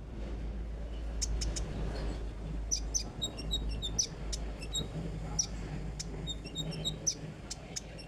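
Konin songbird singing: a string of short, sharp high chirps and quick runs of notes, starting about a second in, over a steady low hum.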